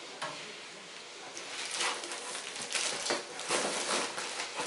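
Plastic packaging wrap crinkling and rustling as a wrapped bike rack arm is handled, after a single light knock near the start as a part is set down.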